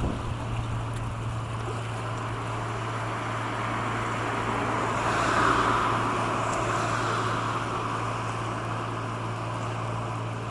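A small tender boat's engine passing by with a steady low drone, over the rush of water from its hull and wake, which swells to its loudest about halfway through and then fades a little.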